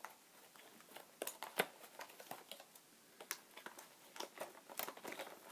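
Fishing-lure packaging being worked open by hand: a string of irregular clicks, taps and crinkles as the tight packaging resists.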